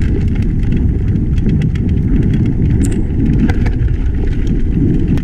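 Steady heavy rumble of wind and ride vibration on a mountain biker's camera microphone, with scattered clicks and rattles from the bike on rough trail.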